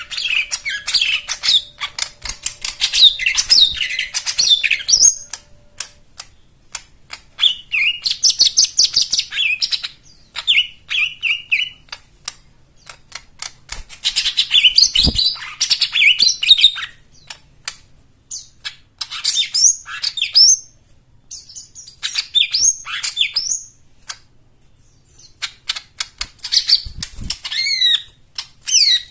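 Lesser green leafbird (cucak ijo mini, "jomin") singing a varied song in bursts of a few seconds. Each burst is a run of rapid chirps, trills and fast clicking notes, and short pauses separate the phrases.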